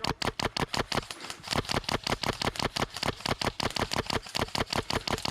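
Airsoft gun firing full-auto in one long, unbroken burst: a steady rapid stream of sharp shots, about eight a second.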